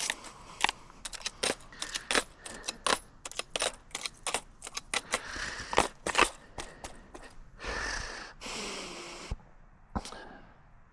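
Smith & Wesson 627 revolver being handled between strings: many sharp metallic clicks and jingling of brass cartridge cases and moon clips, with a short scraping rustle about eight seconds in.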